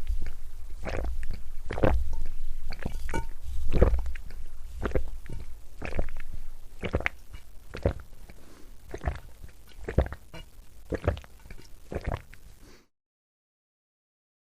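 A person drinking in big gulps, about one swallow a second, with a low gurgle under each. Loudest at first and growing fainter, the gulps stop near the end.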